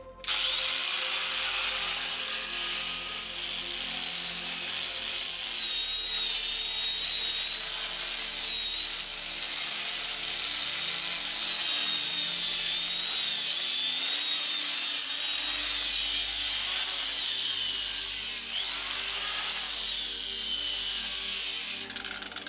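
Angle grinder fitted with a sanding disc, running and sanding old painted wooden floorboards to strip the paint. The high whine wavers in pitch as the disc is worked over the boards, lifts once near the end, then winds down.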